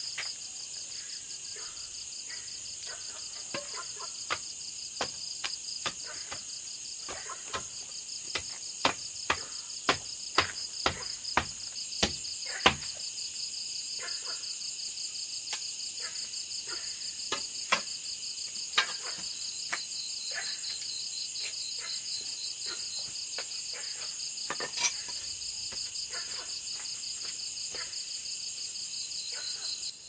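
Insects trilling steadily in a high, pulsing chorus, with a scattered run of sharp knocks or clacks that come fastest and loudest about 8 to 13 seconds in.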